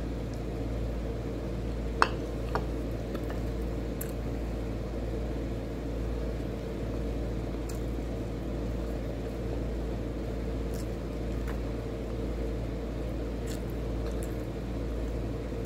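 Steady low hum with a faint held tone, under soft sounds of eating by hand. A sharp click comes about two seconds in, and a smaller one shortly after.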